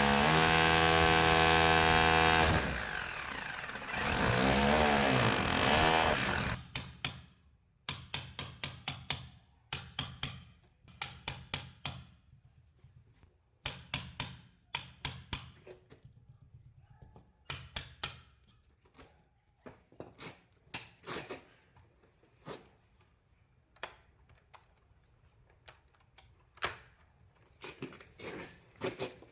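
Electric drill running for about six seconds, its pitch dropping and wavering as it bites under load, then a long run of short, sharp bursts in quick clusters.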